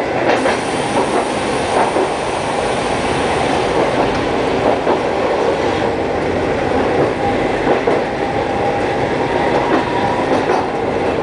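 Hankai Tramway streetcar running along street track, heard from aboard: a steady rumble and rattle of steel wheels on the rails, with occasional faint clicks and knocks.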